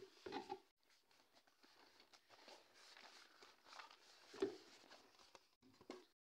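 Near silence with a few faint handling sounds from a polystyrene foam packing piece being lifted off a boxed makeup case: soft scrapes and light taps, the clearest about four and a half seconds in.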